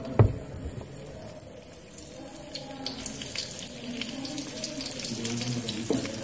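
Batter-coated chicken leg pieces deep-frying in hot oil: a steady sizzle with scattered crackles, and one sharp click about a quarter second in.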